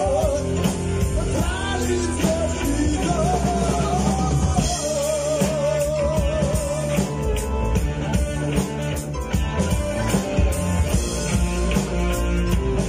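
Rock band playing live: electric bass, electric guitar, keyboards and drum kit, with a lead vocal. The vocal line ends in a long held note with vibrato about five seconds in, and the band plays on without voice after that.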